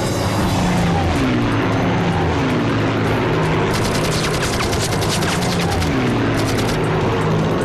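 War-drama battle soundtrack: a steady low drone with music-like sustained tones, and a spell of rapid gunfire shots from about halfway through.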